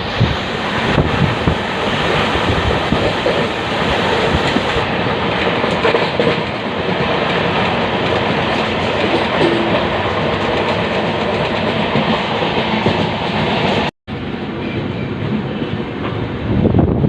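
Passenger express train running, a steady loud rumble of wheels on the rails, with a brief dropout in the sound about fourteen seconds in.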